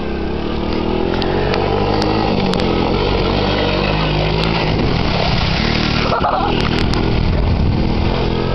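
Engine of a Honda Big Red three-wheeler running under throttle as it is ridden through mud. Its pitch rises and falls as the rider works the gas.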